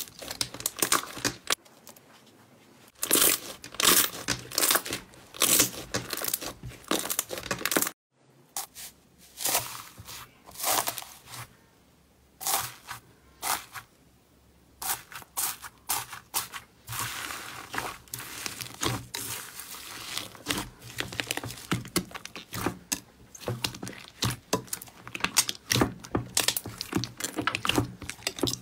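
Slime being squeezed, stretched and poked by hand, giving rapid irregular crackling, popping clicks and small crunches, with a short break about eight seconds in.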